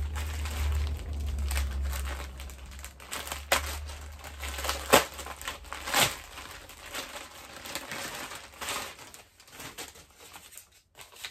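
Plastic bags crinkling and rustling as they are handled and pulled open, with irregular sharp crackles throughout. A low rumble runs underneath for the first five seconds.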